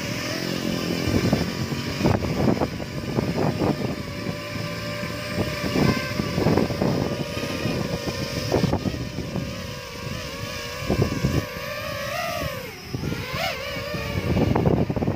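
DJI FPV drone's propellers whining steadily as it lifts off and flies. The pitch dips and rises near the end as it manoeuvres.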